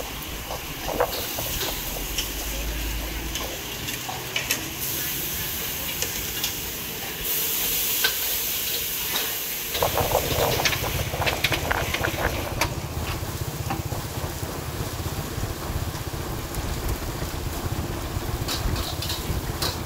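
Satay skewers sizzling over a charcoal grill, with a steady hiss and scattered sharp clicks. A low rumble joins about halfway through.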